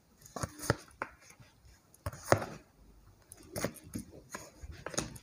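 Tarot cards being laid down one after another on a cloth-covered table: a scattered series of soft taps and brief card slides.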